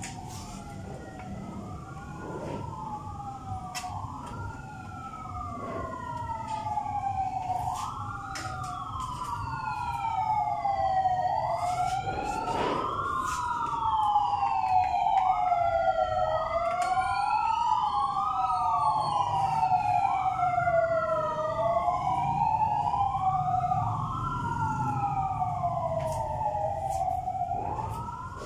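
Emergency vehicle sirens wailing, two or more overlapping, each rising and falling in pitch about every second and a half; they grow louder toward the middle and fade near the end. A few faint clicks and knocks come through underneath.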